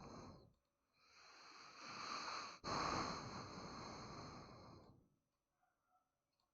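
Breath noise close to the microphone: a long breath, then a second one starting about two and a half seconds in, which fades out about five seconds in.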